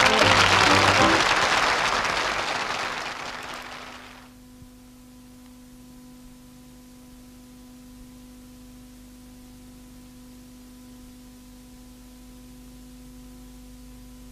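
Studio audience applause with a brief burst of the theme music, fading out over the first four seconds or so. A steady low hum follows for the rest.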